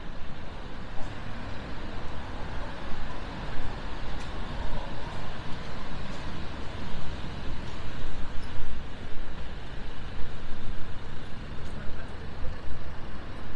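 City street traffic on a rain-wet road: cars running past with a steady hiss, and faint small ticks now and then.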